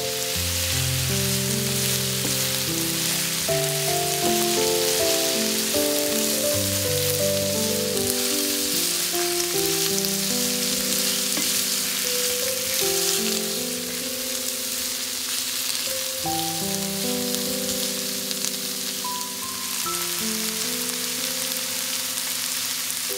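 Food sizzling as it fries, a steady crackling hiss, over background music of held melodic notes. The sizzle eases a little about halfway through.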